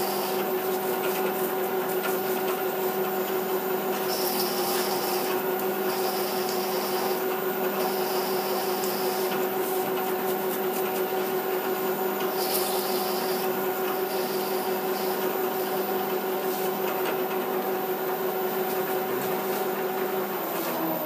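Bridgeport milling machine spindle running with a steady hum while a counterbore cuts into aluminium, with a scraping cutting noise and short bursts of hiss now and then. Near the end the spindle is switched off and its hum falls in pitch as it winds down.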